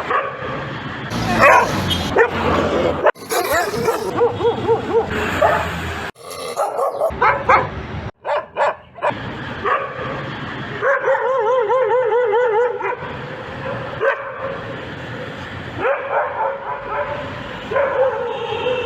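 Dogs barking, yipping and whining in a run of short clips that change abruptly every few seconds, with a long wavering whine a little past the middle.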